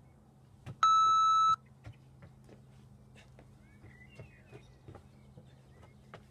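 One electronic beep about a second in, a steady high tone lasting under a second: a workout interval timer marking the end of the rest and the start of the next effort. It is followed by faint, light footfalls on wooden decking as the athlete sprints off.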